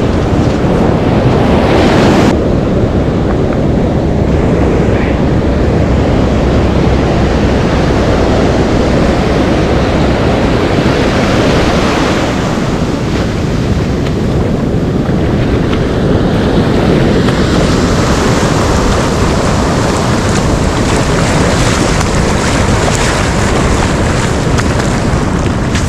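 Ocean surf washing on the shore, with wind buffeting the microphone; the hiss of the breaking waves swells up a few times.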